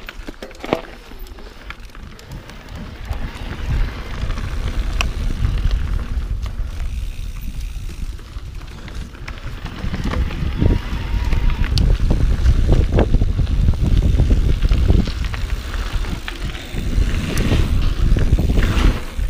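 Wind buffeting the microphone over the low rumble and rattle of an e-mountain bike rolling over a dirt trail. It grows louder about four seconds in and again after about ten seconds, with scattered sharp clicks and knocks from the bike.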